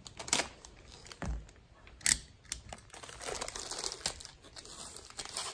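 Clear plastic bag crinkling in short, sharp crackles as a new foam handlebar grip is taken out of its packaging, with a dull knock just over a second in.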